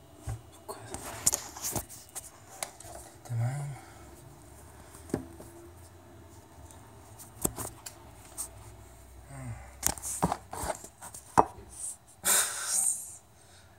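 Handling noise from hands gripping and moving the camera: irregular clicks, knocks and rubbing, with a louder brushing rub against it about twelve seconds in.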